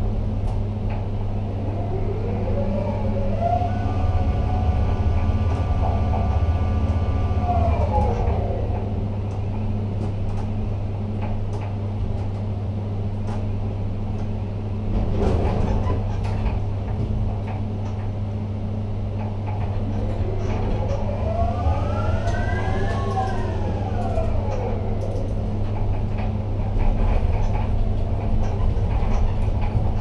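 Ship-to-shore container gantry crane's electric drives running with a steady low hum, their whine rising in pitch, holding and winding back down twice as the crane moves the load. A short clatter comes about halfway through.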